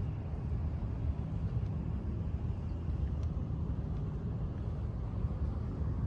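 Steady low rumble of outdoor city ambience, with a few faint ticks over it.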